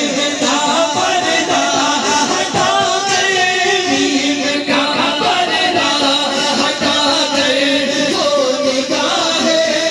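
Men singing a naat, an Urdu devotional song in praise of the Prophet, into a microphone and over a loudspeaker, with a wavering, melismatic melody.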